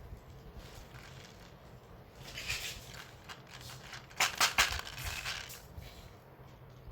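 Plastic candy packet crinkling as it is handled, with a short rustle and then a burst of sharp crackles about four seconds in.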